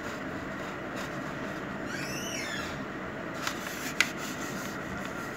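Sheet of origami paper being folded and creased by hand on a hard tile floor: soft rubbing, with a couple of sharp clicks about three and a half and four seconds in, over a steady background hiss. A brief high chirp about two seconds in.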